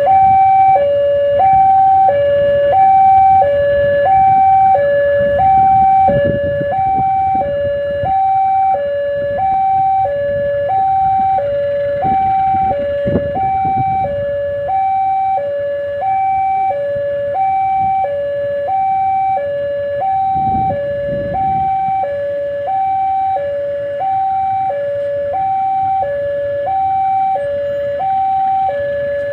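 Electronic railway warning alarm sounding a steady two-tone signal that alternates high and low, about one high-low pair a second: the sign that a train is approaching. Under it there is a low rumble that swells now and then.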